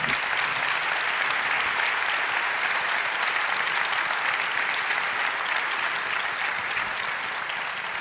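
Audience applauding steadily, easing off slightly near the end.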